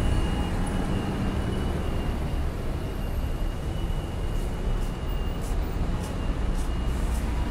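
Steady rumble of city vehicle traffic, with a thin steady high whine held throughout and a few light ticks in the second half.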